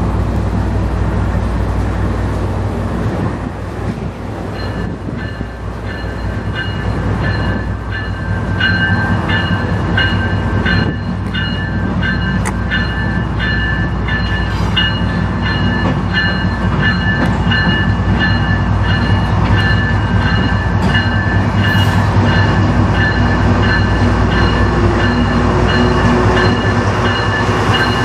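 CN freight train approaching and passing, its GE Evolution-series diesel locomotives running with a steady low drone that grows louder as the lead units come alongside near the end. A high, pulsing ring joins about four seconds in and keeps going.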